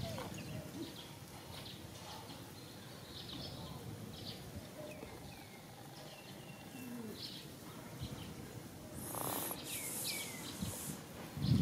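Baby macaque crying in short, high squeaks that fall in pitch, repeated every second or so over a faint outdoor hiss. A burst of rustling noise comes a little before the end.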